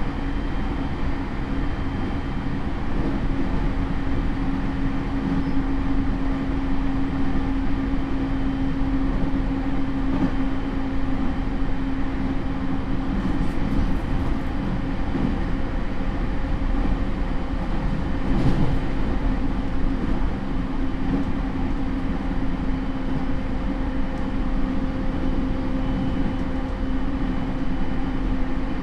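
Running noise heard inside a JR E231 series suburban electric train's motor car, which has Hitachi IGBT inverter drive: a steady rumble of wheels on rail with an even hum over it, the speed holding. A single knock comes about two-thirds of the way through.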